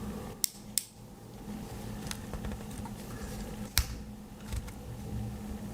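A few sharp small clicks and taps, about three distinct ones with fainter ticks between, as a tiny neodymium magnet and small earbud speaker parts are handled. A faint steady low hum sits underneath.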